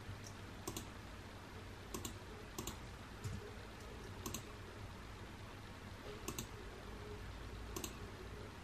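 Computer mouse buttons clicking, faint and irregular, about eight clicks spread out with gaps of one to two seconds, some as quick double clicks.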